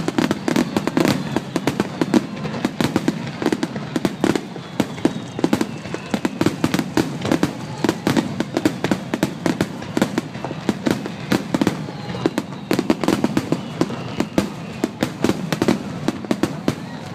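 Aerial fireworks finale: a dense, continuous barrage of shell bursts and crackles, several bangs a second with no let-up.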